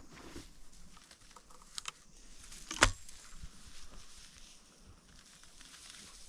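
Rustling and footsteps through dry prairie grass, with one sharp shotgun shot a little under three seconds in.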